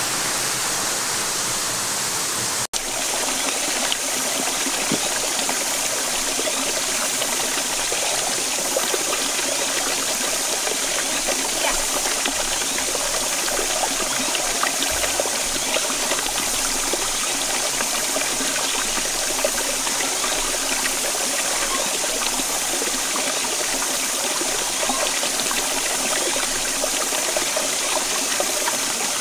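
Shallow stream running over rocks: a steady rush and babble of water. It cuts out for an instant about three seconds in.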